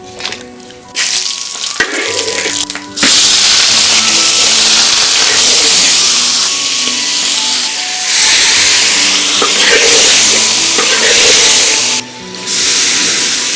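Food sizzling in hot oil. The frying starts suddenly about three seconds in, runs loud and steady, and breaks off briefly near the end before resuming.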